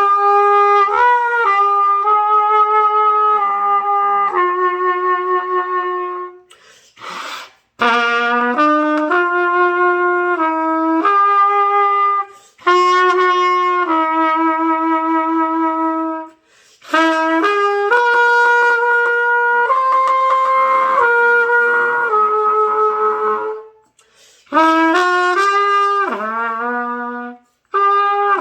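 Trumpet played by a learner, holding long notes that step up and down through a Do-Mi-Sol arpeggio. There are about five phrases, broken by short gaps for breath, with a brief rush of air between the first two.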